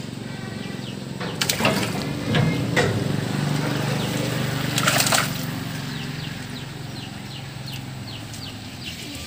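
Muddy pond water sloshing and splashing as a hand scoop net is swept through it, with the loudest splashes about one and a half, three and five seconds in. A low steady hum runs underneath.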